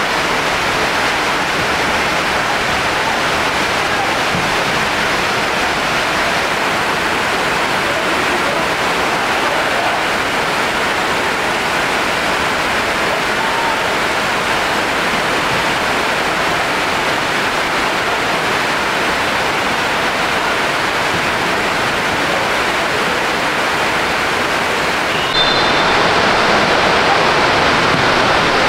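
Heavy rain falling steadily, an even hiss; the sound changes abruptly and gets a little louder near the end.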